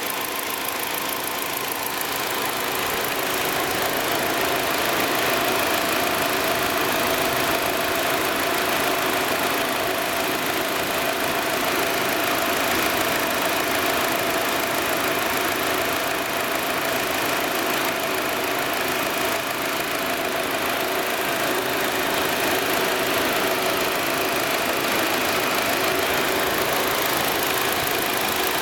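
Steady running sound from the engine bay of a 2016 Nissan Versa idling with the air-conditioning compressor engaged and the condenser cooling fan running, a steady whir that grows a little louder a few seconds in. It is the sound of a new car's A/C compressor and fan working normally.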